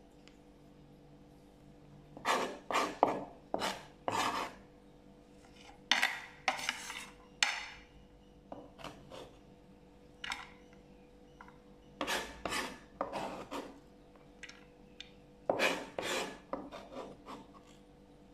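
Kitchen utensils scraping and rubbing on a cutting board: short scraping strokes in clusters of two to four, with pauses of a second or more between the clusters.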